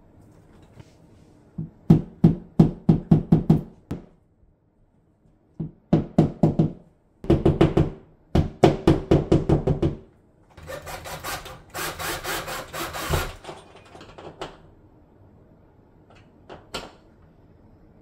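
Hand tools knocking against a tiled wall while towel hanger hardware is fitted: several bursts of quick taps, about four or five a second, then a longer rattling, scraping stretch a little past the middle.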